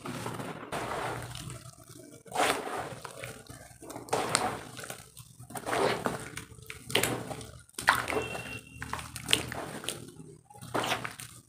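Muddy water poured and sloshed over a pile of dry roasted dirt in a tub, in repeated wet surges every second or so. At the start, dry dirt crumbles through hands.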